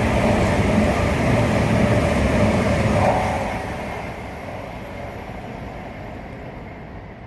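A train running past at speed, loud at first, then fading away steadily from about three seconds in as it moves off down the line.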